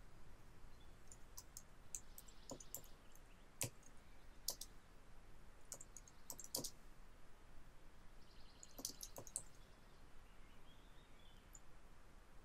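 Faint keystrokes on a computer keyboard, scattered clicks in small groups with pauses between them, over a faint background hiss.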